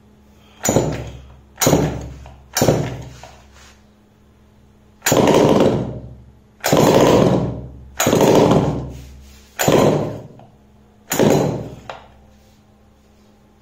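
A 49cc two-stroke mini dirt bike engine being pull-started: eight sharp pulls on the recoil starter, three short ones and then five longer ones, each cranking the engine for about a second without it catching and running.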